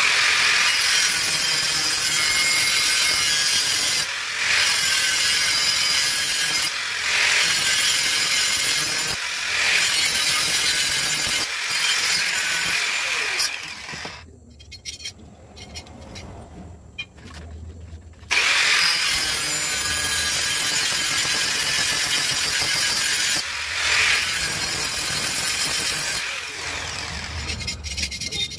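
Handheld angle grinder with its disc on a steel pipe, running in passes of a few seconds each with short breaks between them. It stops for about four seconds in the middle, then grinds again until shortly before the end.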